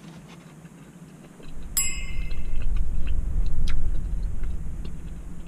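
A single bright metallic ding, ringing for about half a second, over a low rumble that swells from about one and a half seconds in and dies away near the end.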